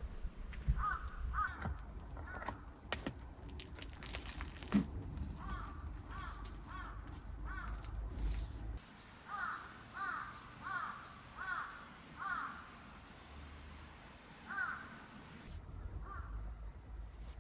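A crow cawing in runs of short harsh calls, with a run of about six in a row in the middle and a few single caws later. In the first half, sharp clicks and knocks of handling can be heard under the calls.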